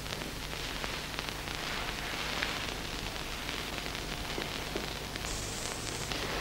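Steady rain pattering against a window, a soft even hiss full of small ticks.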